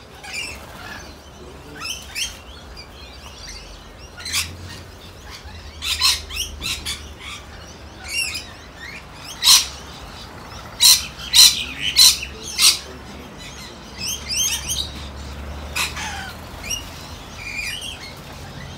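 A flock of lorikeets chattering and screeching, with a run of about five loud, sharp shrieks a little past halfway.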